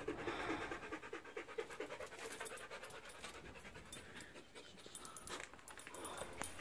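Rapid, rhythmic panting, clearest in the first couple of seconds and then fading, with a few light clicks near the end.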